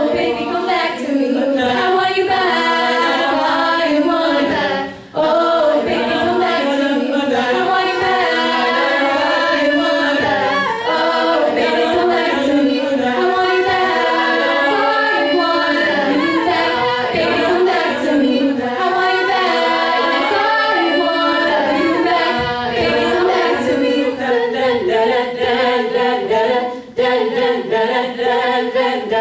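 All-female a cappella group singing, a lead voice over backing voices with no instruments. There is a brief break in the singing about five seconds in.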